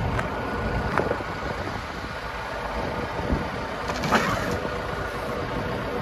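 John Deere 310K backhoe loader's four-cylinder diesel running steadily, with a faint steady hydraulic whine as the rear stabilizer legs are lowered. Two brief squeaks stand out, about a second in and again around four seconds in.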